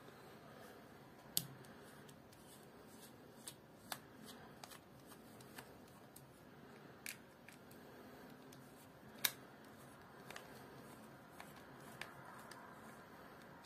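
Scattered small, sharp clicks and taps of a precision screwdriver bit on the screws of a plastic-bodied baitcasting reel as it is taken apart, with light handling of the reel. The clicks are irregular and faint, with two louder ones.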